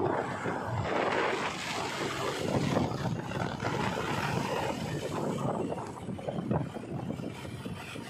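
JCB 3DX backhoe loader driving along a road, its diesel engine running and its tyres rolling on tarmac, with wind buffeting the microphone as it moves alongside.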